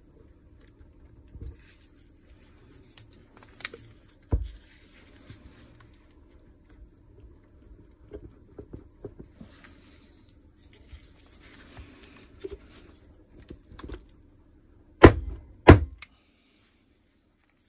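Hands and tools working the plastic housing off a Makita DHR242 cordless rotary hammer: scattered clicks, scrapes and light knocks, with two sharp knocks about fifteen seconds in. A faint steady hum runs underneath.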